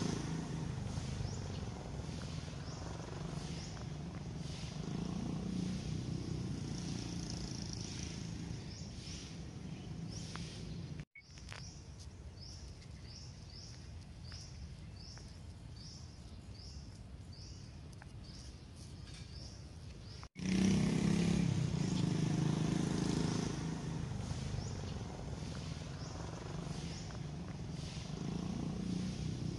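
A carpenter bee buzzing with a low drone that swells and fades as it works the flowers. Short, falling, high chirps repeat more than once a second in the background. The buzz drops away for about nine seconds in the middle, leaving the chirps.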